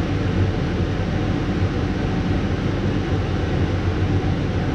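Steady whir of a kitchen fan running, with a low hum under it.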